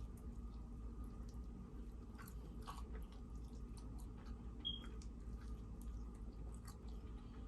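A person chewing and biting food, with faint wet mouth clicks and small crunches. A short high beep sounds once, a little past the middle.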